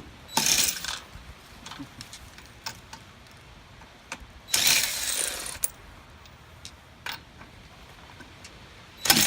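Metallic clattering and ratcheting from hand tools and hardware during a car wheel change: a short rattle near the start, a longer one about halfway through, a few light clicks, and a sharp clack near the end.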